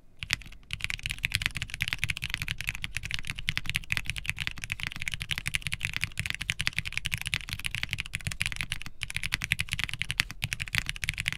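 Fast typing on a QwertyKeys QK65 mechanical keyboard with unlubed Cherry MX Red RGB linear switches, aluminium plate, foam and GMK ABS keycaps: a dense, steady stream of keystrokes. The switches sound deep and scratchy, with a pingy spring noise, which is typical of unlubed Cherry MX switches.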